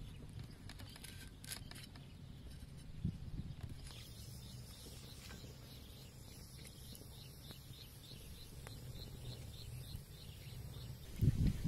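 Faint outdoor ambience with a steady low rumble, over which a small creature's high chirp repeats a little over twice a second from about four seconds in. A few loud low thumps come near the end.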